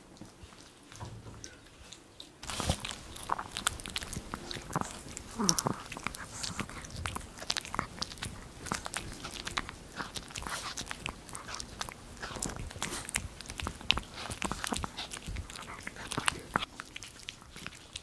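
A Maltese dog gnawing a chew stick held between its paws: a rapid, irregular run of crunches and bites that starts about two and a half seconds in.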